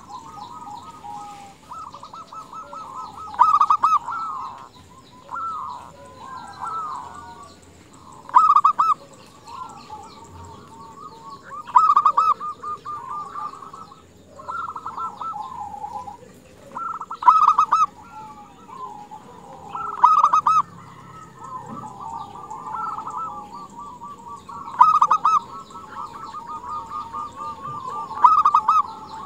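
Female zebra dove (perkutut) calling over and over: soft rolling coos, with louder bursts of quick coo notes every few seconds. It is a female's call that draws males to answer.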